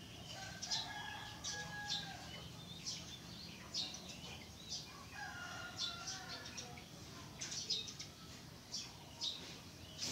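Small birds chirping over and over, and a rooster crowing twice, each crow about a second and a half long.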